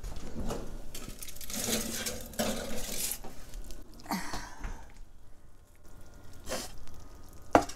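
Foil-lined roasting pan of potatoes being pulled out of a hot oven: a series of separate knocks and clatters of the pan against the oven, with some rustling between them.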